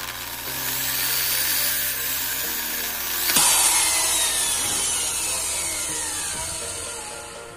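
An electric drill bores bolt holes through a model truck's leaf-spring hanger and chassis rail. It runs loud at speed, jumps sharply about three seconds in, then winds down in falling pitch until it fades near the end.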